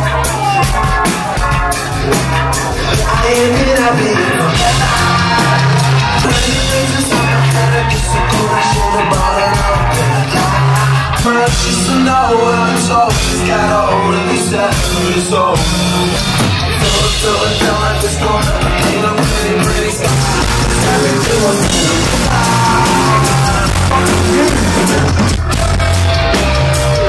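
Rock band playing live at full volume, a drum kit hitting a steady beat under a voice singing.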